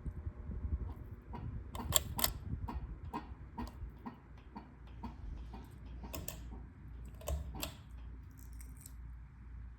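Quorum QXL ceiling fan running with a steady hum and irregular sharp clicks and ticks, most frequent in the first half. A low, regular throb comes in later.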